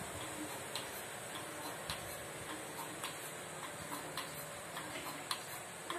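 Pulsator of a single-bucket milking machine clicking about once a second as it alternates vacuum to the teat cups, over the steady hum of the machine running.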